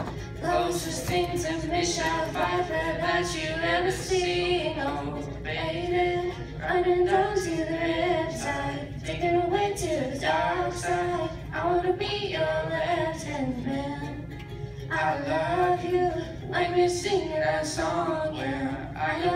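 A girl singing a pop song into a microphone, with a ukulele strummed along quietly beneath her voice.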